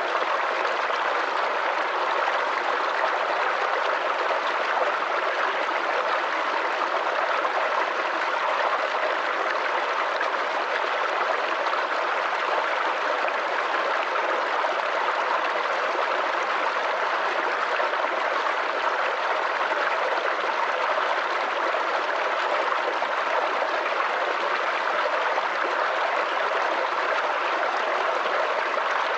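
Small forest creek babbling and gurgling over stones, a steady unbroken rush of running water.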